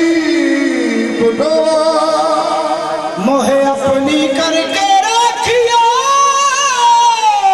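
Qawwali singing: a male lead voice sings a long drawn-out melodic line over harmonium, climbing about halfway through to a high held note with vibrato that slides back down near the end.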